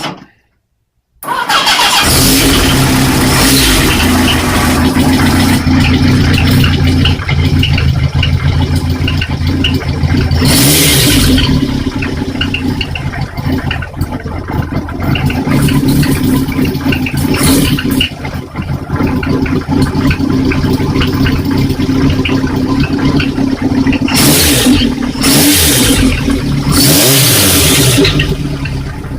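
Kawasaki Z1's air-cooled inline-four running through an aftermarket S252-type silencer, idling steadily with throttle blips about ten seconds in and several more near the end.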